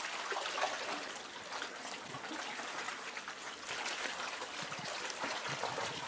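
Seawater washing and trickling among shoreline rocks, a steady hiss with no clear wave breaks.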